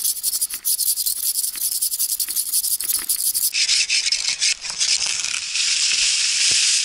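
Sven folding bow saw cutting through a small tree trunk: rapid back-and-forth rasping strokes that run together into a denser, steadier rasp about halfway through.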